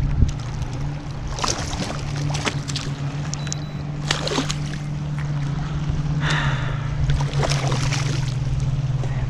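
Steady low hum of the boat's motor, which steps up in pitch for a moment about halfway through, with repeated splashing as a hooked catfish thrashes at the surface beside the boat.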